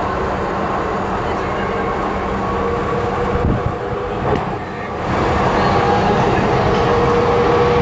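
Docklands Light Railway train running, a steady rumble with a couple of held tones through it. It gets louder about five seconds in.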